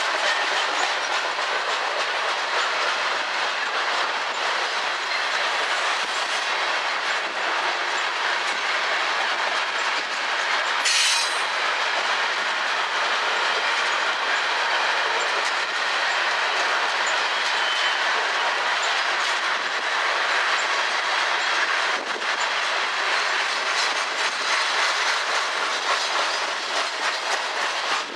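Freight train of covered hopper cars rolling past, with the steady rolling noise of steel wheels on rail. There is one short high-pitched screech about eleven seconds in.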